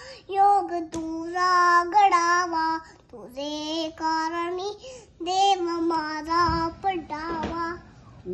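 A toddler girl singing alone, in drawn-out phrases of one to two seconds with short breaths between them.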